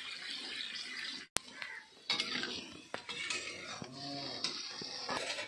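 Metal spoon clinking and scraping against a cooking pot as chicken curry is stirred, with water just added. A steady hiss of pouring water cuts off suddenly about a second in, and irregular clinks and scrapes follow.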